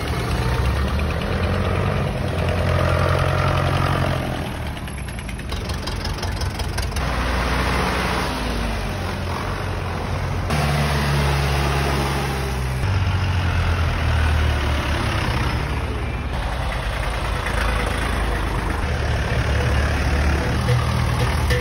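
Vintage tractor engines, among them a Bührer, running as the tractors drive past one after another. Their low engine tone changes every few seconds as one tractor passes and the next comes up.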